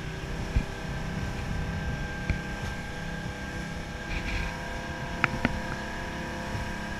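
Jeanneau Leader 650 motorboat's engine running steadily at a low, even pitch, with a few short light knocks about half a second, two seconds and five seconds in.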